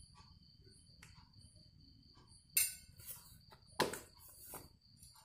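Metal spoon clinking against a glass dish a few times, with two sharper knocks about two and a half and four seconds in.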